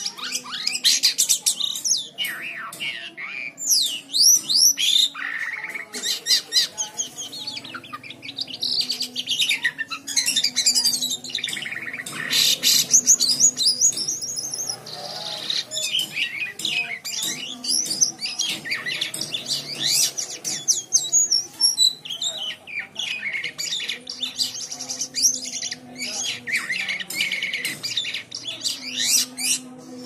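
Caged white-shouldered starling (jalak kapas) singing a long, unbroken run of fast, high chattering and whistled phrases, with only a few short breaks.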